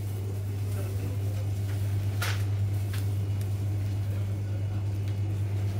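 Steady low electrical hum of a glass-door refrigerated drinks cooler, growing a little louder in the first seconds. A short sharp click comes about two seconds in, and a fainter one about a second later.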